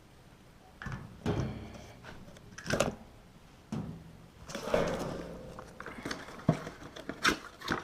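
Handling clatter as the new washing-machine water pump is picked up and handled: several separate knocks and a rustle of packaging about halfway through.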